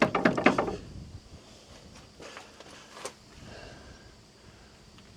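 Quick metal clicks and knocks of a wrench working a 13 mm adjusting nut, loosening the chain tension: a fast run of clicks in the first second, one more sharp click about three seconds in, then faint handling.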